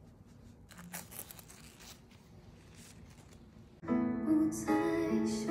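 Faint rustling and tearing of a thin protective sheet at a new MacBook Pro's screen, then about four seconds in, loud music with a held, wavering tone starts suddenly from the laptop's speakers.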